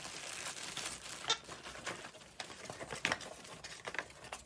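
Paper and plastic packaging rustling and crinkling as a garment is pulled out of a kraft-paper mailer, with a few sharp crackles spread through.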